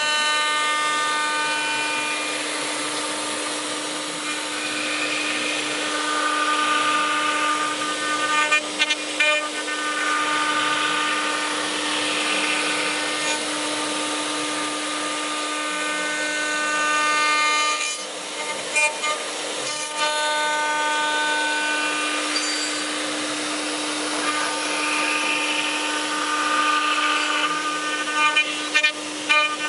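Multi-head CNC wood machining centre running: a steady hum under spindle whines that come and go as the heads cut, with short bursts of clicking and knocking about every nine or ten seconds.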